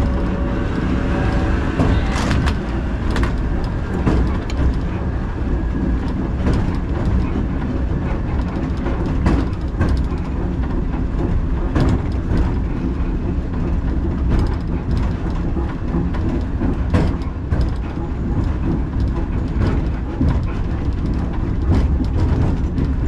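Vintage two-axle tram running along the track, heard from the driver's cab: a steady low rumble from the running gear with frequent sharp clicks and knocks as the wheels pass over rail joints.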